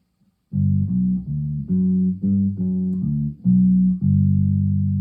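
Lakland PJ electric bass played through a small practice amp with both the P and J pickups on and the tone knob rolled fully down: a short run of plucked notes with little treble, starting about half a second in, the last note held and left to ring.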